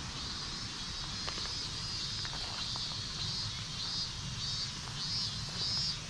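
Cicadas calling from the surrounding trees in a high, pulsing buzz that repeats about twice a second and grows clearer toward the end, over a steady low rumble.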